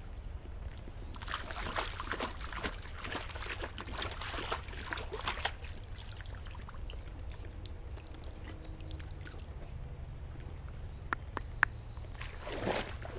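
A horse's hooves splashing through water, with irregular splashes thick for the first few seconds and then thinning out. A couple of sharp knocks come about eleven seconds in, over a steady low rumble.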